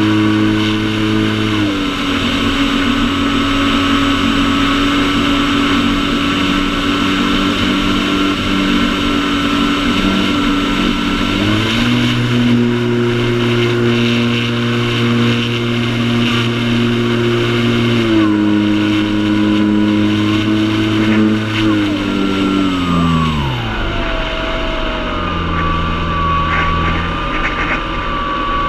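RC airplane's motor and propeller drone heard from the onboard camera, with wind rushing past. The pitch drops as the throttle is eased back about 2 s in, rises again around 12 s, drops again around 18 s, and then slides steeply down a few seconds before the end as the power is cut for the low approach over the grass strip.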